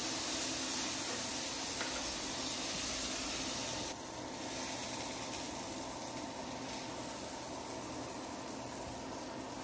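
Filet mignon steaks sizzling in butter and garlic in a hot cast-iron skillet, a steady hiss that drops suddenly to a quieter sizzle about four seconds in.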